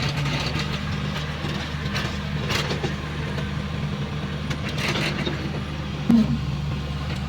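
Heavy diesel engine running steadily, with a few short knocks and clanks over it.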